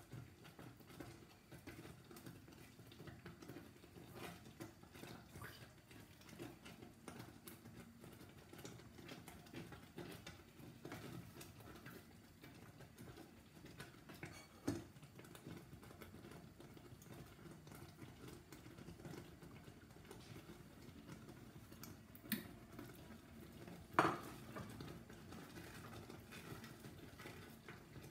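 A spoon stirring thick, hot jam in a stainless steel saucepan: a soft, continuous scraping and churning, with three sharp knocks of the spoon against the pan, the loudest about two-thirds of the way through.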